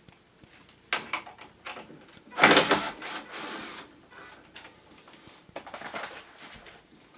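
Irregular handling noises from working on an air conditioner: scattered clicks and short scraping, sliding sounds of parts being moved, the loudest a scrape lasting about a second, a little over two seconds in.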